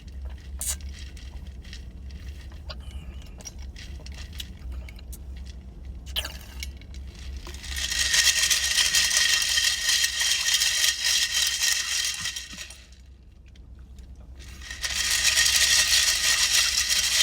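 Ice crackling and clinking in two long, loud bouts of dense crunching, with a short pause between them. Softer scattered clicks come before the first bout.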